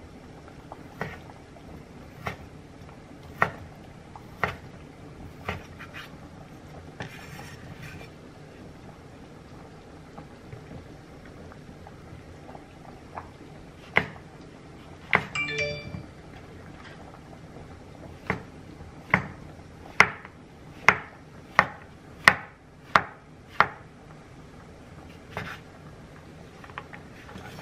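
Chef's knife chopping on a wooden cutting board, slicing sausage and then button mushrooms: single knocks of the blade on the board roughly once a second, then a quicker run of about nine chops later on. A short ringing clink sounds about halfway through.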